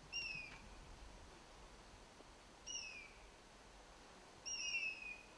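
A bird calling a short, falling whistle three times, a couple of seconds apart; the third is a little longer.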